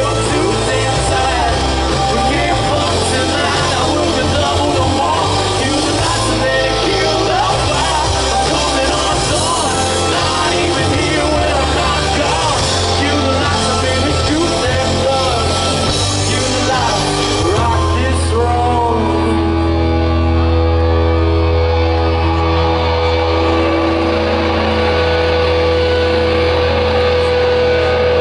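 Live hard-rock band playing, with singing over electric guitars, bass, keyboard and drums. About two-thirds of the way in, the singing and cymbals drop away, leaving a sustained held chord over a steady low bass note.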